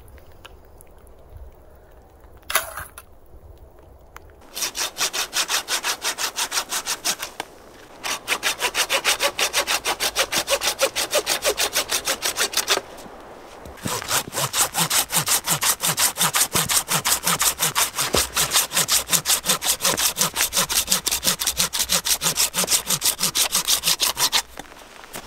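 Curved-blade garden pruning saw cutting through dead conifer wood in fast back-and-forth strokes. The sawing comes in three runs with short pauses between. A single sharp click sounds before it starts.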